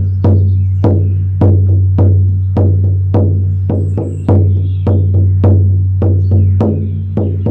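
Oval horse-skin shamanic frame drum on a willow frame, struck with a firm beater in a steady beat of just under two strokes a second, each stroke leaving a deep ringing boom.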